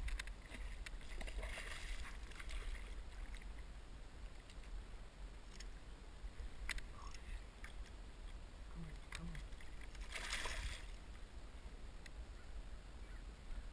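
A hooked bass splashing and thrashing at the surface beside a kayak while it is landed by hand, water sloshing against the hull, with one louder splash about ten seconds in. A low rumble runs underneath.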